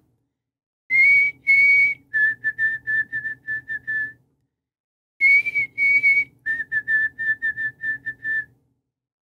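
White-throated sparrow singing its clear whistled song twice: each time two long notes, then a run of about eight shorter, slightly lower notes, the pattern remembered as 'Old John Peabody, Peabody, Peabody'.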